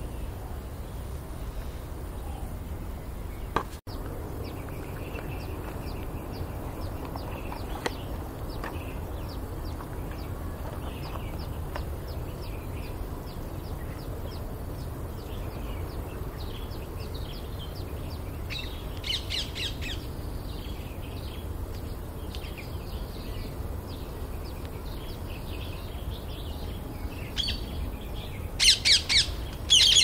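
Parakeets calling over a steady low rumble: faint scattered chirps, a short run of harsh squawks about two-thirds of the way through, and loud repeated screeching calls near the end.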